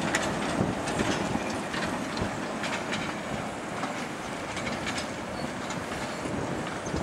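A 15-inch gauge train of wooden coaches hauled by a small steam locomotive rolling past, wheels clicking irregularly over the rail joints over a steady running rumble, slowly getting a little quieter as it draws away.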